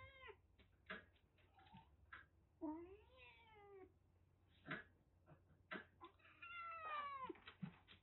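Cats meowing: two drawn-out meows, the first rising then falling in pitch and the second, about three seconds later, falling in pitch, with a few short sharp clicks in between.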